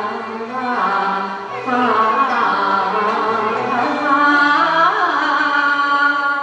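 Cantonese opera (yueju) singing: a voice holding and bending long drawn-out notes over instrumental accompaniment.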